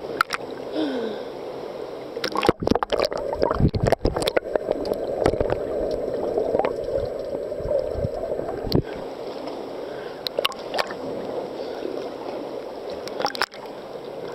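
Seawater gurgling and sloshing around a camera held at the surface and dipped under, with a cluster of splashes and knocks a few seconds in and scattered ones later.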